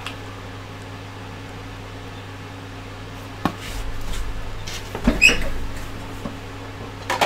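A small cardboard box handled and set down on a tabletop: a sharp tap about three and a half seconds in, low bumps and rubbing with a short louder scrape around five seconds, and another click near the end, over a steady low hum.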